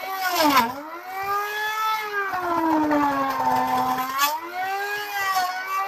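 Bench-mounted electric power tool cutting into a wooden block, its motor whine sagging in pitch as the cutter bites under load and climbing back as the load eases. The deepest dip is in the middle, with a shorter one near the start.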